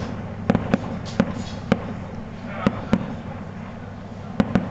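A fireworks display: sharp bangs of shells bursting at irregular intervals, about nine of them, some coming in quick pairs. A close cluster of bangs falls near the end.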